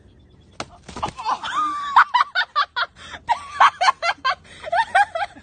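High-pitched laughter in rapid, choppy bursts, starting after two short knocks about a second in and carrying on to the end.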